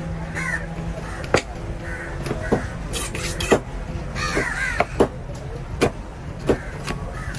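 Sharp knocks of a large curved knife striking the wooden cutting block as it cuts through a yellowfin tuna loin, about one a second. Crows caw near the start and again around the middle, over a low steady rumble.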